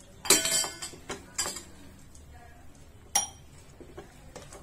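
Metal spoon clinking against a cooking pan while stirring a thick curry: a handful of sharp clinks. The loudest, about a quarter second in, rings briefly, and others fall about a second in, near a second and a half, and just past three seconds.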